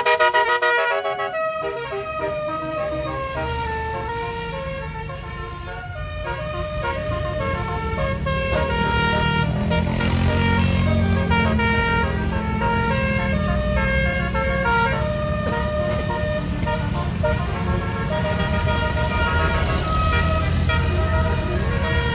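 Bus's multi-note telolet basuri horn playing a quick melody of stepped notes over and over, with the bus engine running and growing louder about eight seconds in.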